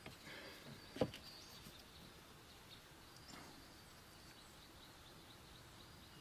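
Quiet background with a single sharp knock about a second in and faint high chirping throughout.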